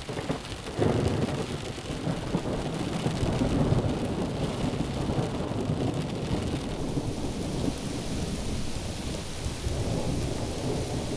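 Heavy thunderstorm: rain pouring down, with a deep rumble of thunder that swells up about a second in and rolls on.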